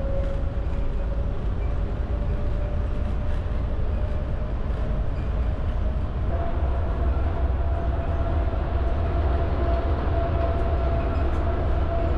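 Riding inside a people-mover train car in motion: a steady running rumble with a motor whine that steps up in pitch about halfway through.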